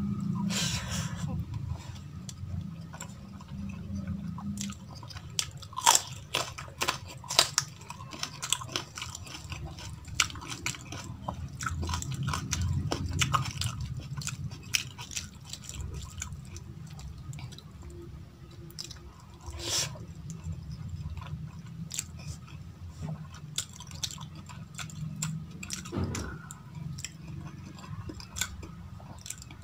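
Close-up eating sounds: chewing a mouthful of jeera rice and dal, with many short, wet mouth clicks throughout.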